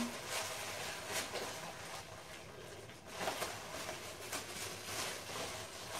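Plastic protective bag and gift wrapping crinkling and rustling faintly and irregularly as they are handled and pulled open.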